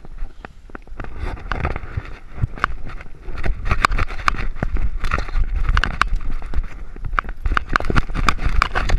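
Jostling from a camera strapped to a running dog's collar: a rapid string of knocks and rubs as it jolts against the dog, over a low wind rumble, louder from about three and a half seconds in.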